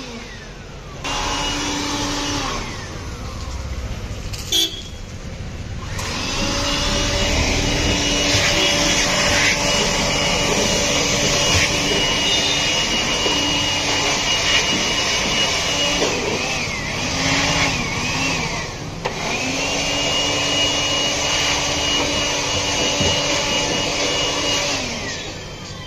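Electric air blower running in three bursts to blow dust out of a speaker cabinet. At each burst its whine rises as the motor spins up and falls away as it is switched off: a short run about a second in, a long run from about 6 to 16 seconds, and another from about 19 seconds until near the end.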